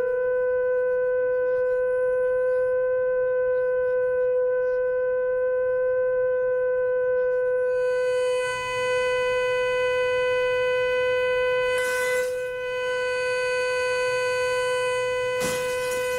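Loud, steady single-pitched tone from a loudspeaker driven by a signal generator and amplifier at a wine glass's resonant frequency (more than 400 vibrations a second). About eight seconds in, the tone grows harsher with more overtones as the volume is turned up, and about twelve seconds in, the wine glass shatters with a brief crash; another brief crash comes near the end while the tone holds.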